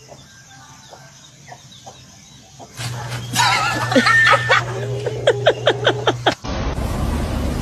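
Chickens squawking and cackling in a scuffle, mixed with laughter, starting about three seconds in with a quick run of sharp cackles near the end, then cutting off abruptly.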